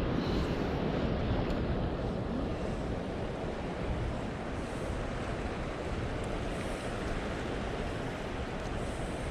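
Steady rush of fast-flowing river water, mixed with wind buffeting the microphone.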